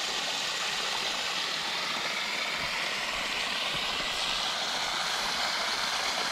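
Steady rushing of running water, an even hiss without breaks.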